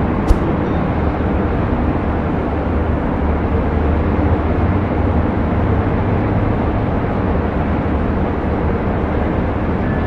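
Distant city traffic as a steady low rumble with a haze of noise. About a third of a second in there is a single sharp click.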